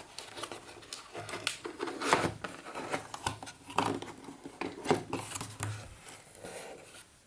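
Packaging rustling and crinkling as a chess clock is unpacked by hand, with irregular scrapes and light knocks from the handling.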